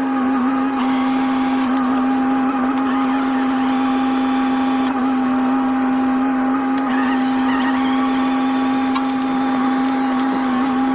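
Excavator running with a hydraulic attachment at steady speed: an even, unchanging machine hum and whine.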